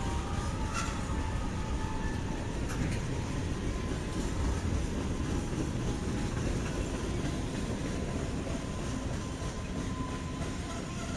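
Freight train cars rolling past on the rails in a steady rumble, with two sharp clicks about one and three seconds in.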